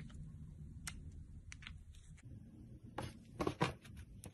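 Hands pressing into thick slime: soft sticky clicks and crackles, with a louder run of squishy pops about three seconds in, over a low steady rumble.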